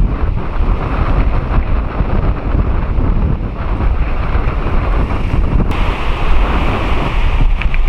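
Wind buffeting the microphone over the low, steady rumble of a four-engine Boeing 747-400 jet climbing out. About six seconds in the sound changes suddenly and turns hissier.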